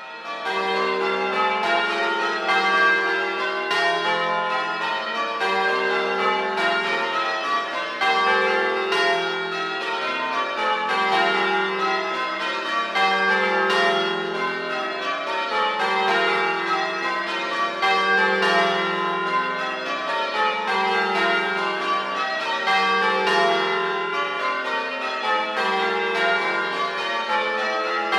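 A ring of eight Gillett and Johnston church bells, cast in 1954, rung full circle in change ringing: a steady, even run of overlapping bell strokes with a long, mellow hum. The sound starts abruptly.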